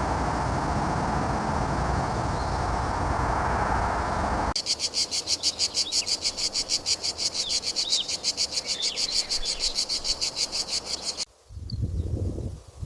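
Ambient nature chorus of a small calling animal: a fast, even, high-pitched pulsing chirp at about six pulses a second, with a few faint chirps over it. It cuts in abruptly after a dense steady noise and stops abruptly near the end, giving way to a soft rustle.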